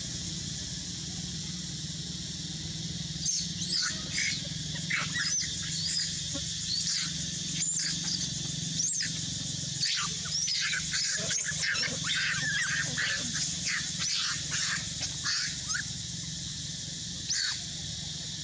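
Long-tailed macaque screaming in distress while a larger male grabs and holds it: a rapid run of short, high-pitched shrieks starting about three seconds in and lasting some twelve seconds, with one more near the end. A steady high hiss runs underneath.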